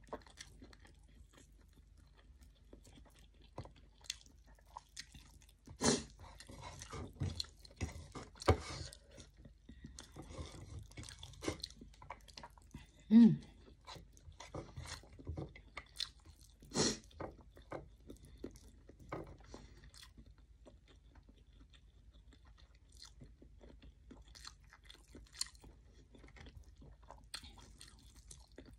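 A person eating rice and fried omelette by hand, chewing with irregular mouth smacks and small clicks that come thicker in the middle of the stretch. A short low hum, the loudest sound, about 13 seconds in.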